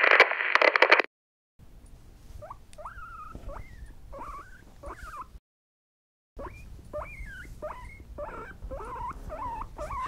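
A loud burst of TV static hiss for about the first second. Then guinea pigs squeaking: short high calls that rise and fall in pitch, in two spells with a pause of about a second around the middle.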